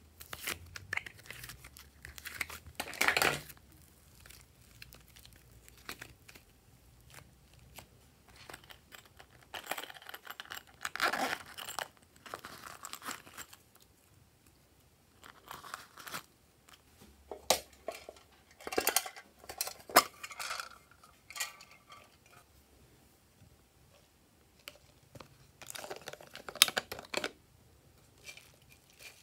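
Plastic slime tubs and packets being handled and opened: crinkling and tearing plastic with sharp clicks and taps, in several short bursts with quiet pauses between.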